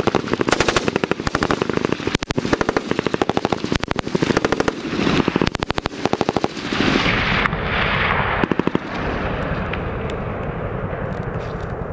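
M249 light machine guns firing belt-fed 5.56 mm rounds in repeated short bursts of rapid automatic fire. After about seven seconds the bursts give way to a steadier noise with only scattered shots.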